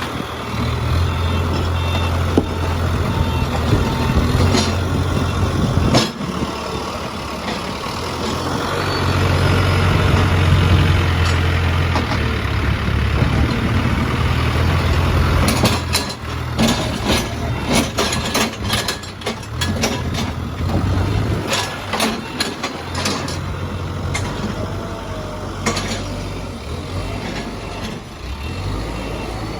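Case 851EX backhoe loader's diesel engine running under varying load, swelling for a few seconds then easing. In the middle stretch come a run of sharp metallic clanks and knocks.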